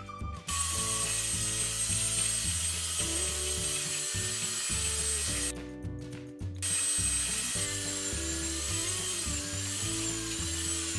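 Plastic toy dentist drill from a Play-Doh Doctor Drill 'n Fill playset, running with a ratcheting mechanical whir and a thin high whine, in two stretches of about five seconds with a short stop in the middle. Light background music plays under it.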